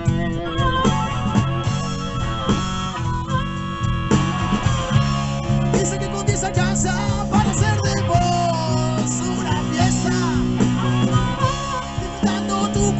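Blues band playing live, with guitar to the fore over a steady bass and drum backing.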